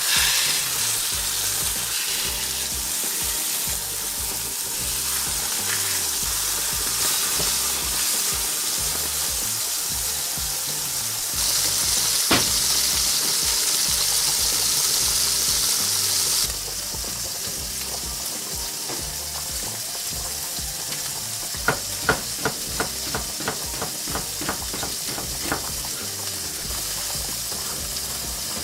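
Food sizzling in a hot frying pan, a steady hiss that grows louder for about five seconds around the middle and then drops back. In the later part comes a quick run of light clicks.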